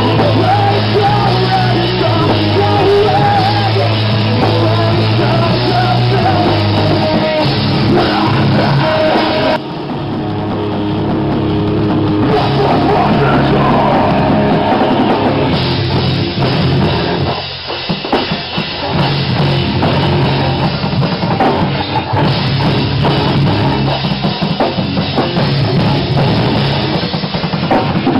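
Live rock band playing loud, heavy rock on drum kit and guitar, with a vocalist singing into a microphone. The band drops back briefly twice, about a third of the way in and again just past halfway.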